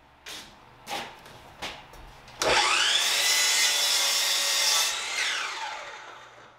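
Hercules sliding compound miter saw: a few light knocks as a board is set in place, then the motor spins up with a rising whine about two and a half seconds in and cuts through the wood for about two and a half seconds. The motor then winds down with a falling whine.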